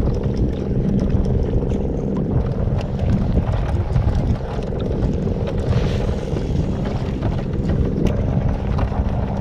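Strong wind buffeting the microphone in a steady low rumble, with frequent small splashes of choppy water against a plastic sit-on-top kayak hull.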